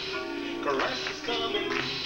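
Music: a live Christian pop song, with a male voice singing over sustained backing music.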